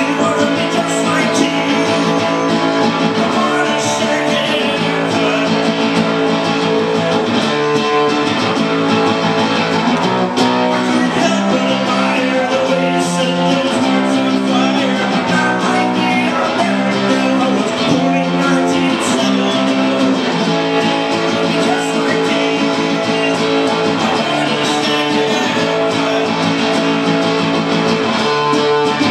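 Acoustic guitar strummed in steady chords, which change every second or two.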